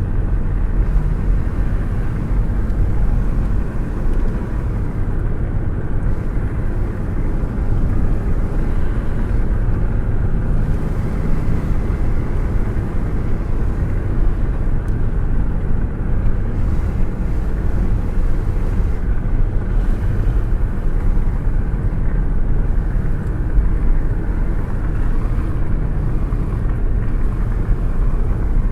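Steady low rush of wind and road noise inside a car cruising at speed, with air buffeting a hand held out of the open window.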